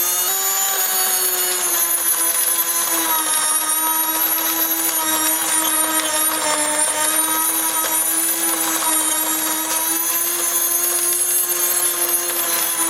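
Electric continuous-feed grain mill running while grinding grain: a steady, noisy motor whine with a high ringing tone above it. The pitch settles slightly lower in the first couple of seconds, then holds.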